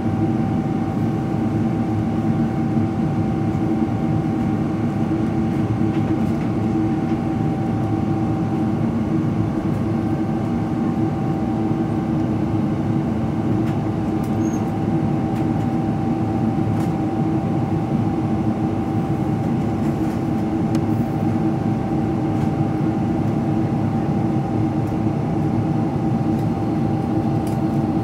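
Steady cabin noise of a Boeing 777-300ER climbing out, heard from a window seat beside its GE90 engine: a broad, even rush of engine and airflow with a constant low hum and a fainter higher tone held throughout.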